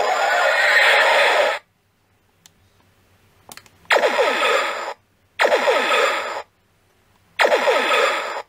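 Electronic sound effects from a USS Voyager toy starship model. A warbling effect cuts off about a second and a half in, and after a pause come three short bursts of about a second each, full of falling pitch sweeps.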